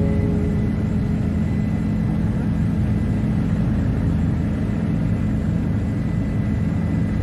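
Helicopter engine and rotor noise heard from inside the cabin in flight: a loud, steady deep drone.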